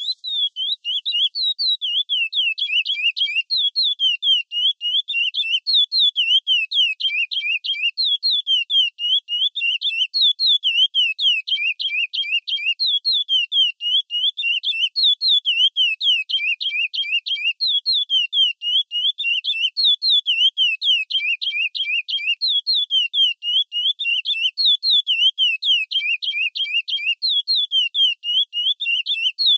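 A curió (chestnut-bellied seed-finch) singing the classic 'praia' song: clear whistled notes sliding up and down, repeated quickly in runs with barely a pause. It starts abruptly and keeps going without a break.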